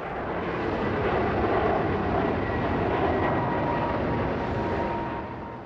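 Twin-engine jet airliner climbing out after takeoff: a steady roar from its engines with a faint high whine in it. It swells over the first second and fades near the end.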